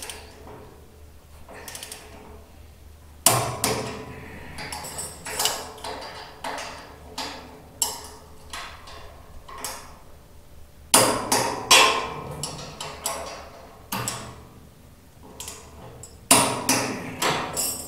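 Ratcheting torque wrench tightening steel suspension bolts on a car's front upper control arm: irregular bursts of sharp metal clicks and clinks, with the strongest runs starting about three seconds in, around eleven seconds and near the end.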